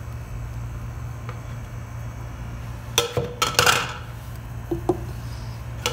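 Metal spoon knocking and scraping against a small glass bowl, a few sharp clinks about three seconds in and two lighter ones near the end, over a steady low hum.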